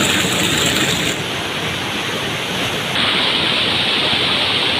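Water cascading down a stone wall and splashing into a pool, heard as a steady rushing noise. Its tone shifts abruptly about a second in and again about three seconds in.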